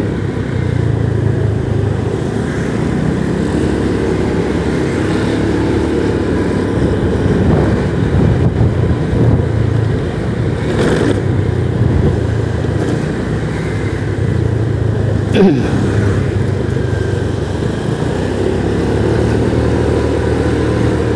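Motorcycle engine running steadily while riding, its pitch and level shifting with the throttle, over road noise. A short sharp sound stands out about two-thirds of the way through.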